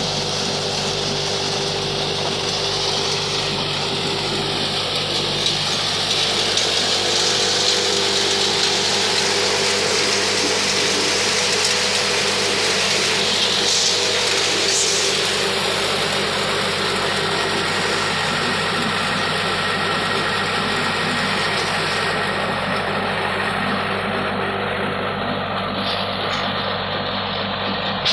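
Tractor-driven crop thresher running steadily under load, a dense rushing hiss of crop going through the drum and fan over the steady hum of the tractor engine driving it.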